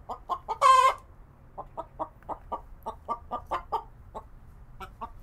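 A hen clucking in short clucks, about four a second, with one loud drawn-out squawk about half a second in.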